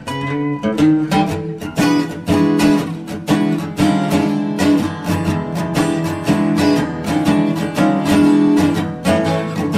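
Background music led by plucked acoustic guitar, played in a steady rhythm of strummed and picked notes.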